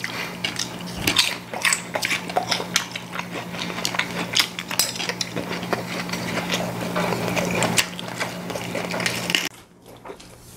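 Mealtime clatter: chopsticks clicking and tapping against ceramic bowls and plates, with chewing, over a low steady hum. The hum stops and everything turns quieter about nine and a half seconds in.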